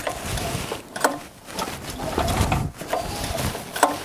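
The recoil starter of a petrol generator's four-stroke engine is pulled a few times in separate strokes, with the rope whirring out and the engine turning over without firing. This cranking spreads a few grams of oil put through the spark plug hole over the cylinder walls to preserve the engine for storage.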